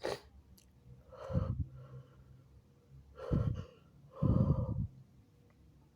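A man's sharp gasping breaths, three of them, the last one longest and loudest. These are the catching inhalations of an induced sneeze building up while he tries to hold it back.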